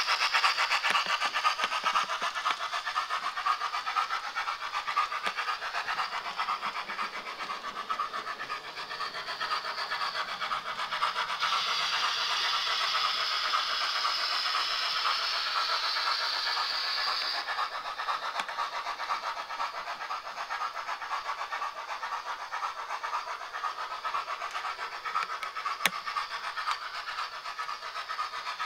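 Model steam locomotive 'City of Sheffield' with a DCC sound decoder, playing fast, even steam-exhaust chuffs through its small onboard speaker as it runs. A brighter hissing layer joins about twelve seconds in and cuts off about six seconds later. There is a single sharp click near the end.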